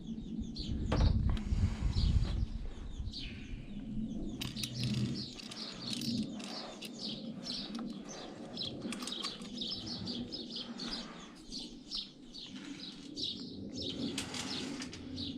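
Small birds chirping repeatedly in quick, high notes, with low knocking and handling noise in the first couple of seconds.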